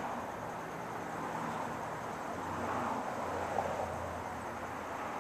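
Back-yard outdoor ambience: a steady rushing background noise that swells slightly about halfway through, with a faint low hum under the swell.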